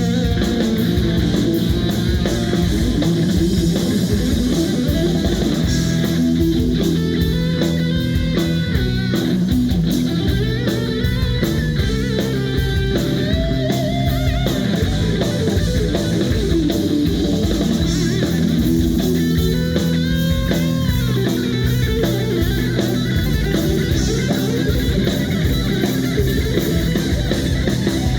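Live rock band playing an instrumental passage: a lead guitar line that slides and bends in pitch, over a steady drum kit beat and bass.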